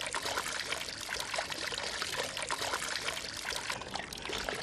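Boiling water poured from a metal ladle over the skin of a hanging plucked duck, a steady pour trickling and splashing down the carcass: scalding the skin to tighten it before roasting.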